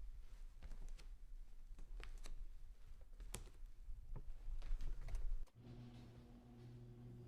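Irregular light clicks and taps, a few a second, which grow louder before cutting off abruptly about five and a half seconds in. A steady low electrical-sounding hum follows.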